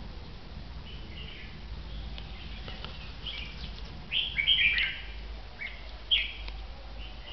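Caged red-whiskered bulbuls calling in short, bright chirping phrases, the loudest cluster about four seconds in and a sharp single call about six seconds in.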